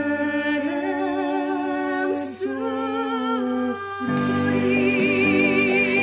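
A woman singing a slow trot song, holding long notes with wide vibrato. About four seconds in, an upright piano joins, accompanying her with chords.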